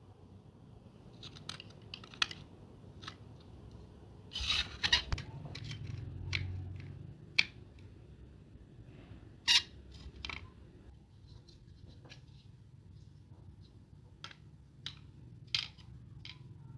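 Scattered small clicks, taps and short scrapes of hand work on a model car, a dozen or so sharp ticks at uneven intervals over a faint low hum.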